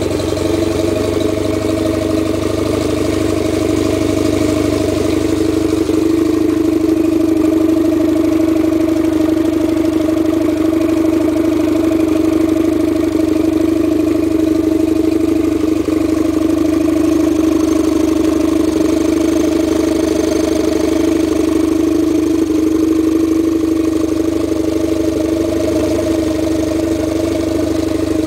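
60 hp Evinrude outboard motor running steadily at an even speed on a test stand, with no revving, and water splashing from its lower unit.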